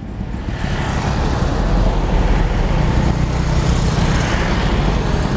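Road traffic passing close by: engine and tyre noise from cars and motorbikes that swells about a second in and stays loud.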